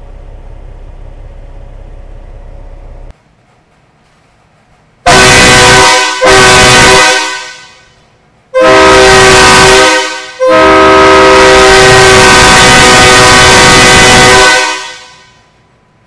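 Grand General chrome air train horn on a Peterbilt 389 blowing four very loud blasts, starting about five seconds in. There are two short blasts back to back, a longer one, then a long blast of about four seconds. Several trumpets sound together as one chord, and each blast trails off instead of stopping dead. Before the blasts, a steady low hum cuts off about three seconds in.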